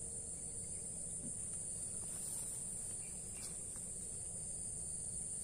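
Steady, unbroken high-pitched insect chorus, with a low background rumble beneath it.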